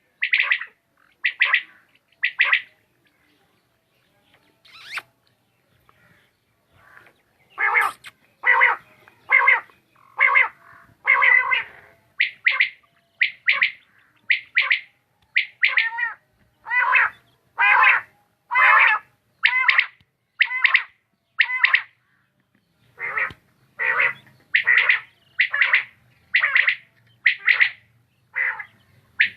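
Quail calling: short, sharp calls repeated in a steady series, roughly one to two a second, with a break of a few seconds early on before the calling resumes.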